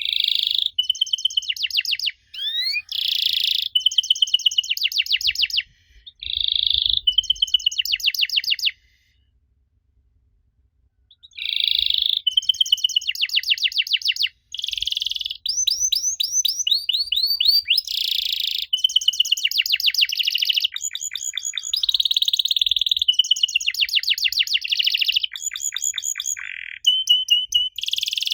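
Domestic canary singing: fast rattling trills and runs of repeated high chirps, broken by a pause of about two seconds near the middle.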